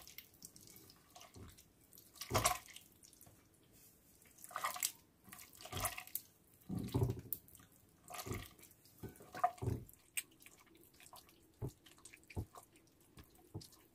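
A hand squeezing and mashing softened butter and oil together in a glazed ceramic dish, making wet squishing sounds in short, irregular bursts.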